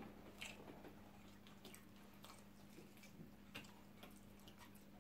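Very quiet eating sounds: scattered soft clicks of chewing and of fingers picking at spaghetti and chicken, over a faint steady hum.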